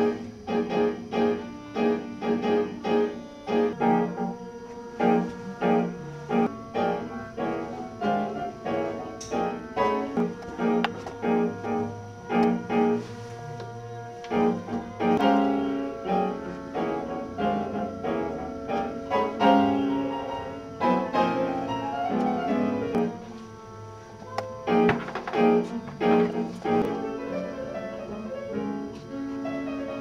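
Piano music playing, notes struck in a quick, steady succession.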